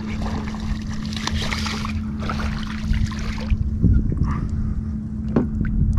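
A small redfish splashing and thrashing at the water's surface beside the boat as it is reeled in, the splashing dying away about three and a half seconds in, followed by a few small clicks. A steady low hum runs underneath.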